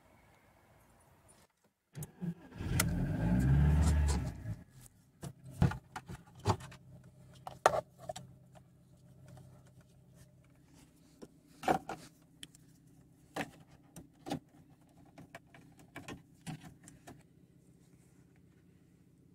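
VW Golf Mk4 engine starting about two seconds in, a loud burst of a couple of seconds, then idling steadily. Scattered sharp clicks and knocks sound over the idle.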